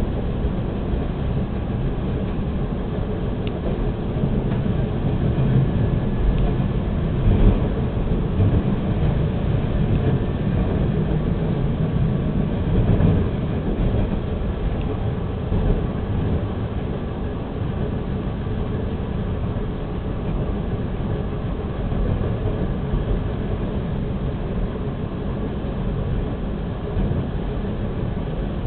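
Steady running noise of a TTC subway train, heard from inside the car as it travels along open track.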